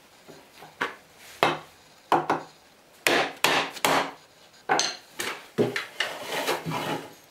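Metal hand plane worked over a wooden board: about a dozen short, rasping strokes in an uneven rhythm, spreading out and lengthening in the second half.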